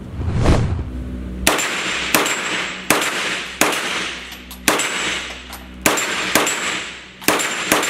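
ADC 9mm pistol-calibre competition carbine firing about nine shots at an uneven pace, each report ringing on in the reverberant range, with short high metallic rings after several shots. A brief low rumble comes just before the first shot.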